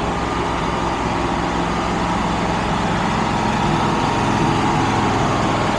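Engine running steadily at a constant speed, with an even low pulsing.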